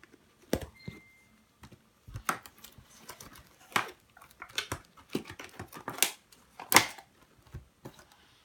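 Small plastic slime tubs and their packaging being handled: an irregular series of clicks, taps and light rustles, with the loudest knock about two-thirds of the way through.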